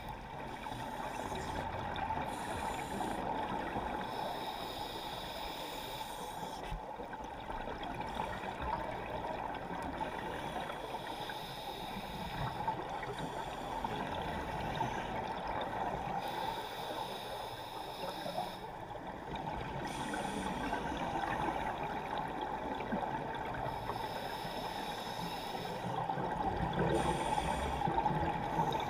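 Underwater ambience: a continuous gurgling, bubbling wash of water, with scuba divers' exhaled regulator bubbles.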